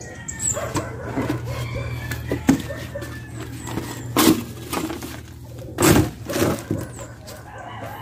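Chickens clucking with a rooster crowing, over a steady low hum, broken by three loud brief knocks or rustles.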